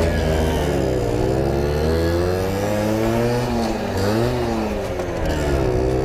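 Simson mopeds' small single-cylinder two-stroke engines running under way, the revs falling and rising several times as the riders work the throttle.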